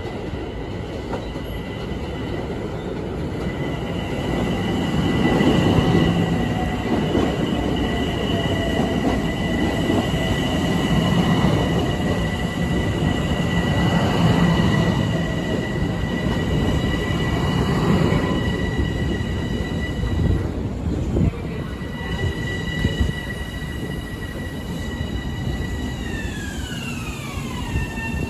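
LIRR M7 electric multiple-unit train running through with a steady rail rumble and a high steady whine. Near the end the whine glides down in pitch as the train slows.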